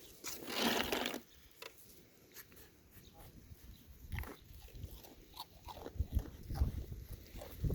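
A farm animal eating animal crackers, with small irregular crunching clicks. A short noisy burst comes about half a second in.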